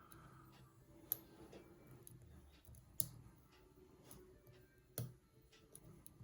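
Faint, sharp clicks as a hook pick works the pins of a Sesamee 533 padlock held under tension, with three clear clicks about two seconds apart.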